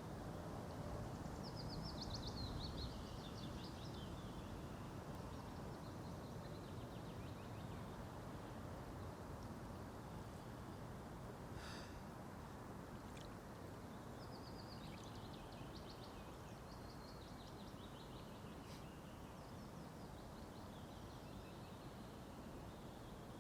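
Small songbird singing short phrases that drop in pitch, several times, over a steady low outdoor background hiss; a single brief click about halfway through.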